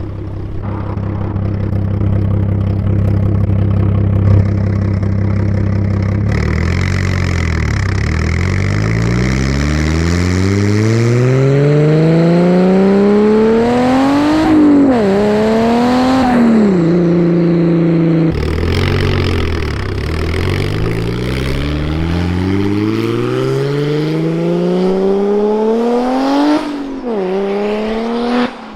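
Single-turbo BMW 335i's straight-six engine running steadily at low revs, then pulling hard with its pitch climbing in two long sweeps, the revs dropping at a gear change around the middle and again near the end.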